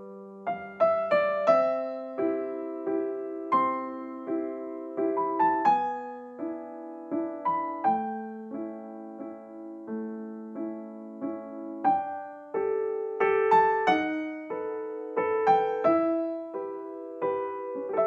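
Solo piano background music: notes and chords struck one after another and left to ring and fade.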